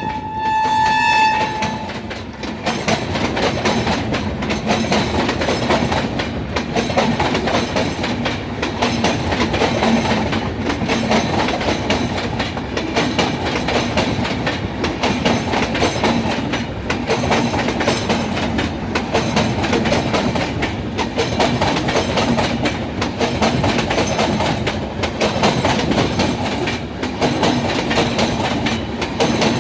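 An Indian Railways express train's horn holds one steady note and stops about a second and a half in. The coaches then roll past slowly and steadily, with the wheels clicking and clacking over the rail joints.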